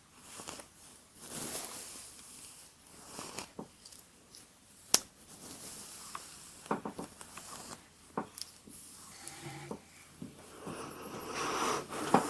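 Hairbrush drawn through hair close to the microphone: soft brushing swishes with sharp clicks and taps in between.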